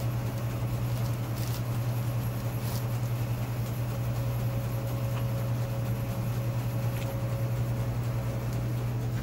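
Steady low machine hum of laboratory equipment, with a faint thin steady tone above it. A couple of faint light clicks come about one and a half and two and a half seconds in.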